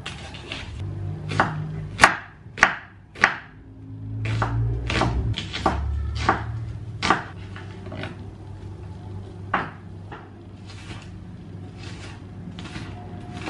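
Knife chopping on a cutting board in irregular strokes, about fifteen sharp knocks, the loudest three close together two to three seconds in.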